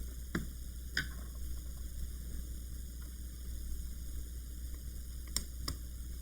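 Small sharp clicks from a screwdriver and the plastic laptop case being handled while the bottom cover screws are taken out: two about a second in and two more near the end, over a steady low hum.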